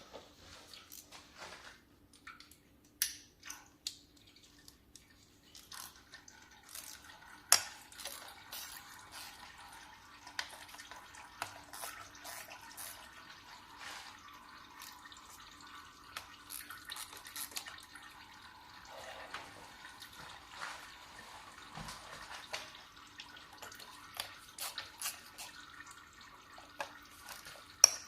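Oil from a Mercedes-Benz 722.6 automatic transmission trickling and dripping, a steady run of liquid from about six seconds in, with scattered sharp clicks and taps, the loudest a bit after seven seconds.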